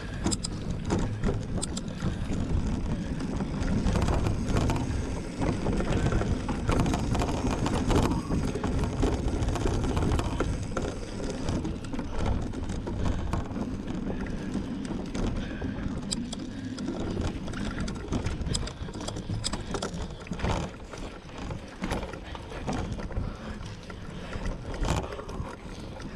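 Mountain bike ridden over a rough off-road cross-country course, close to the microphone: a continuous low rumble with frequent rattles and knocks. It is loudest from about four to ten seconds in.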